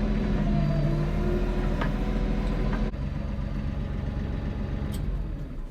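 An engine running steadily, with a change in its sound about halfway through.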